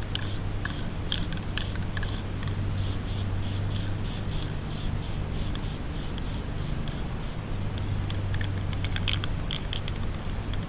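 Aerosol spray paint can hissing as it sprays a coat onto a wire mesh mask, with scattered light clicks and rattles, grouped near the start and again near the end. A steady low hum runs underneath.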